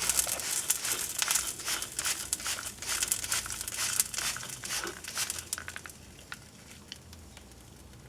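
Hot, freshly burnt and melted Rubik's Cube plastic crackling and popping as it cools after being microwaved. The crackles are dense at first and thin out to a few scattered ticks by about six seconds in.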